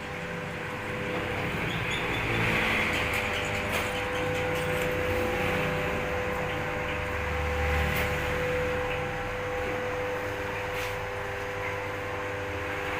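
Milk-powder extractor machine running steadily: a constant motor hum with a steady whine over a fan-like rushing noise.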